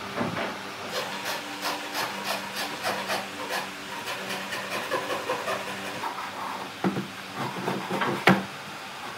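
Pine boards being handled and fitted together: a run of quick light knocks and scrapes of wood on wood, then a few heavier knocks, the sharpest just after eight seconds in.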